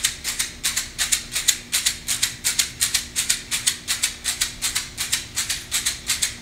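Hand rattle shaken in a steady rhythm, about four shakes a second, with a faint steady hum beneath.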